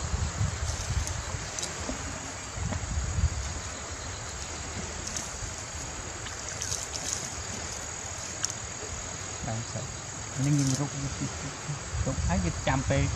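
Insects chirring steadily in one thin, high tone, over a low rumble.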